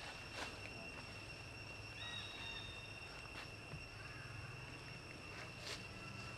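Outdoor ambience: a steady, high insect drone, with a few faint clicks and a short chirp about two seconds in.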